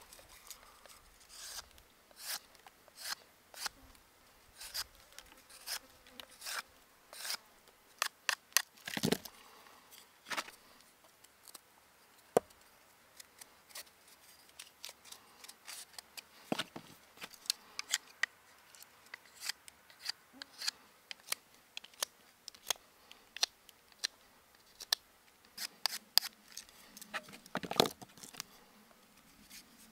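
Short, irregular scraping strokes of a knife whittling a small twig thinner, each stroke shaving off wood.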